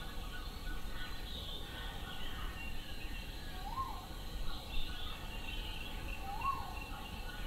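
Several birds chirping and singing in the background, with two short arched whistled notes about four and six and a half seconds in, over a steady low background noise.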